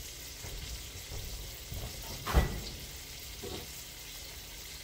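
Flour-breaded squirrel pieces frying in a pan of oil: a steady sizzle. A single sharp clunk about two seconds in, with a softer knock a second later.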